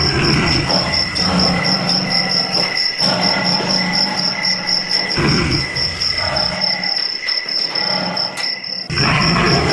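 Crickets chirping in a steady, evenly pulsed high trill, over a low rumbling sound that comes and goes and drops out for a couple of seconds near the end.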